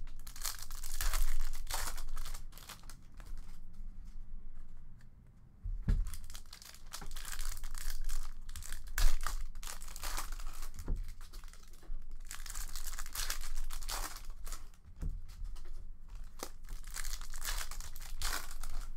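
Foil trading-card pack (2019-20 Upper Deck Allure hockey) being crinkled and torn open by hand, in repeated bursts of rustling with a short lull about five seconds in. A few low thumps come in between, the loudest about nine seconds in.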